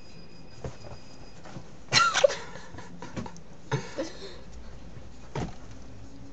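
Pet bird squawking: a loud, sharp cry about two seconds in and a shorter one near the four-second mark, with a few light knocks around them.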